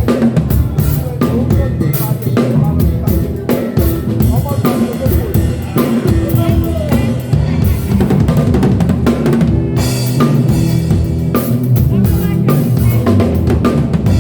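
Full drum kit playing a syncopated groove with displaced accents, dense strokes throughout, over sustained guitar and keyboard notes.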